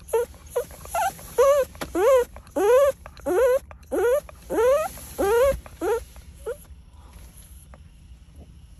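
Cavalier King Charles Spaniel crying plaintively, a quick run of short whines that each rise in pitch, about two a second, stopping about two-thirds of the way in.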